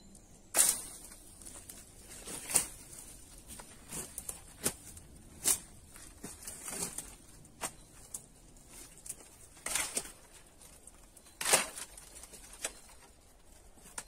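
Dry sticks and brush snapping and rustling as branches are broken and pulled out of a brush shelter by hand, in irregular sharp cracks a second or two apart; the loudest come about half a second in and near the end.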